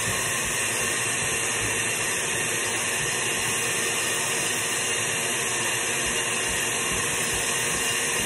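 Electric blender running steadily, blending a paste of garlic, seasoning and a little oil.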